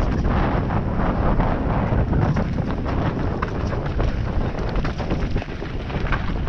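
Mountain bike riding fast down a rocky dirt trail: wind rushing over the microphone, with the crunch of tyres on loose stones and frequent knocks and rattles from the bike.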